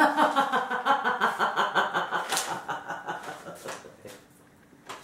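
A woman laughing hard in quick, rhythmic bursts that fade away over about four seconds.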